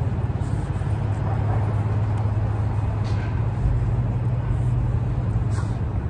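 A steady low engine hum over the general noise of the city.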